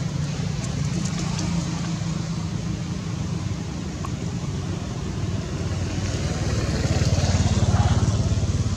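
A motor vehicle's engine running with a steady low hum, growing louder toward the end as it passes close by.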